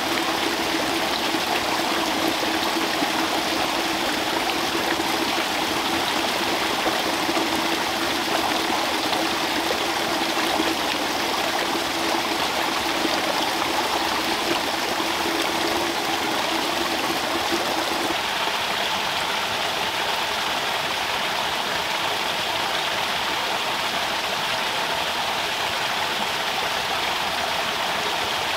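Water pouring from a bamboo spout and splashing into a shallow pond, a steady rush of falling water. A steady low hum runs under it and stops about two-thirds of the way through.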